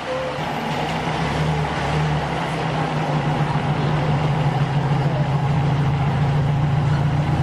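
Chicken pieces sizzling and bubbling as they deep-fry in a large wok of oil over a gas burner, with a steady low rumble underneath.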